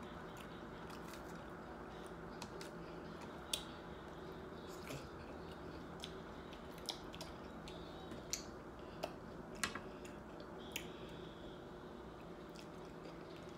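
Close-miked chewing of a hard-shell taco: quiet mouth sounds with a few sharp little crackles scattered through, over a faint steady hum.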